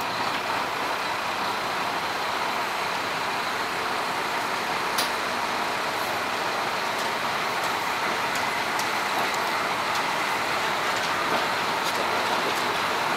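Diesel railcar express train running along the line: a steady rolling and running noise, with a sharp click about five seconds in and a few lighter clicks later.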